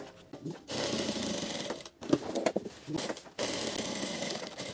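Sewing machine stitching in two short runs of about a second each, with a pause between them. It is topstitching along the thick edge of a denim jeans pocket.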